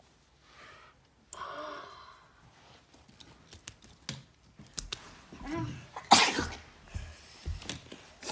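Short, breathy vocal bursts from a child, the loudest a sharp one about six seconds in, with soft rustling and a few thumps as plush toys are handled on carpet.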